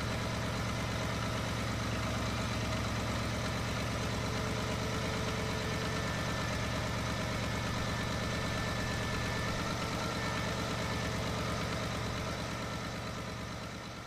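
Lancia Thema 8.32's Ferrari-built 32-valve V8 idling steadily, its driven-gear bearing just repaired. The sound fades out near the end.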